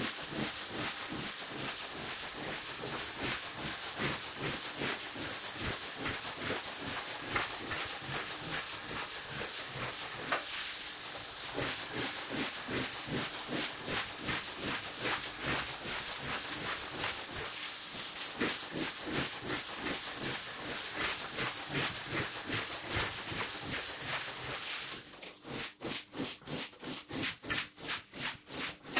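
Sped-up scrubbing of a soaked rug with a hose-fed brush on a pole: a steady hiss of spraying water under fast, regular brush strokes. About four seconds before the end the hiss drops away, leaving separate wet swishes of the brush, about three or four a second.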